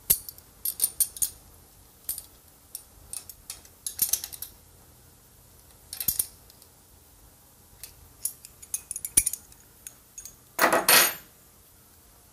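Small metal parts of an electric-motor accessory drive bracket clinking and tapping as they are handled and fitted by hand around the pulleys, in scattered sharp clicks. A longer, louder clatter about eleven seconds in.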